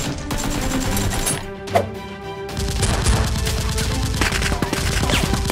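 Action background music, joined from about two and a half seconds in by a rapid, continuous run of shots like automatic gunfire.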